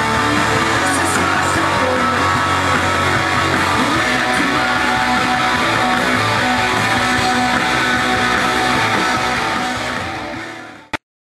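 Background music led by guitars, fading out near the end and stopping with a brief click.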